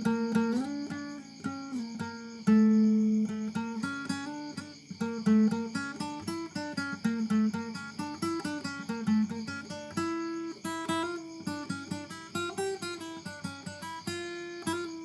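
Acoustic guitar music: a quick run of plucked notes over lower bass notes.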